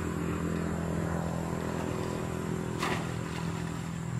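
Steady low engine hum at a constant speed, with one brief sharp noise nearly three seconds in.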